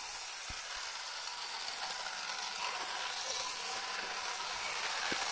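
Small battery-powered 1:20-scale RC toy car's electric motor and gears whirring steadily as it drives across a carpet-tile floor, growing slightly louder as it comes closer.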